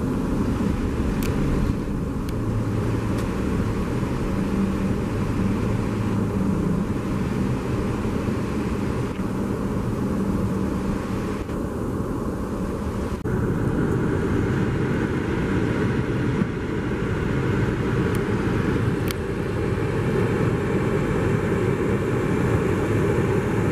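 Steady traffic and road noise heard from inside a moving car, with a low engine hum. The sound changes abruptly about thirteen seconds in and becomes a louder, rougher rumble.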